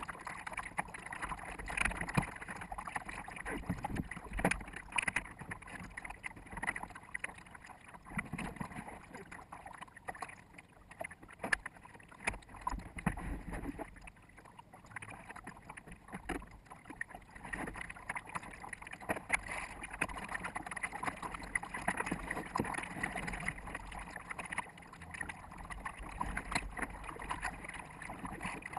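Water splashing and slapping against a small sailboat's bow as it sails, sped up to four times normal speed, so the splashes come as a rapid, choppy rush.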